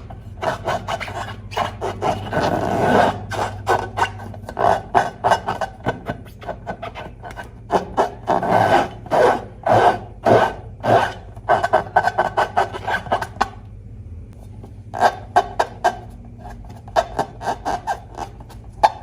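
Hands working slime and rubber balloons: a quick, irregular run of short rubbing and squishing strokes, with a brief pause about two-thirds of the way through.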